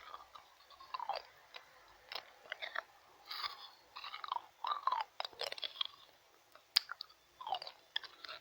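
Ice cubes being bitten and crunched in the mouth close to the microphone, with irregular sharp cracks and crackles throughout.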